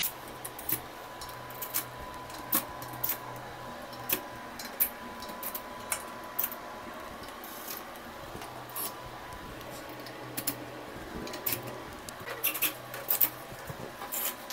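Irregular clicks and light metallic clatter from a cordless drill being handled against a steel frame, around the tightening of its screws.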